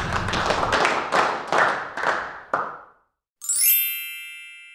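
Channel intro music with a sharp beat about three times a second, stopping about three seconds in. After a brief gap, a single bright chime rings out and slowly fades.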